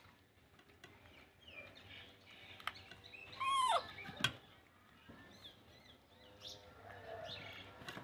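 A short, high-pitched animal call about three and a half seconds in, arching up and then falling in pitch, followed by a sharp click. A few faint clicks are scattered around it.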